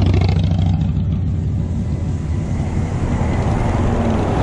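Motor traffic close by on the road: a steady low engine hum with road noise, with a bus pulling alongside near the end.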